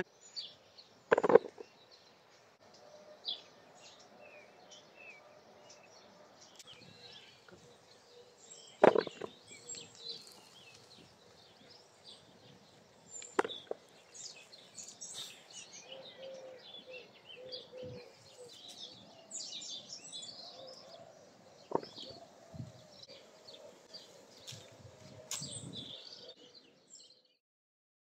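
Potatoes being pulled up and shaken free of soil by hand, with rustling and about five sharp knocks spread out. Small birds chirp in the background.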